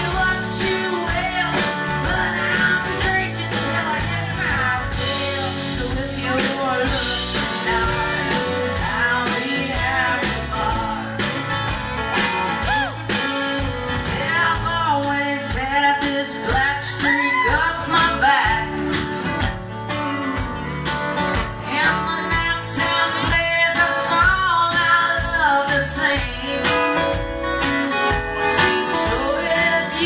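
Live country band performance: a woman singing over strummed acoustic guitar, electric bass and drums, with the drums driving harder from about halfway through.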